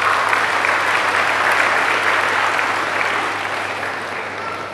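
A large crowd applauding, coming in strongly at once and slowly dying away.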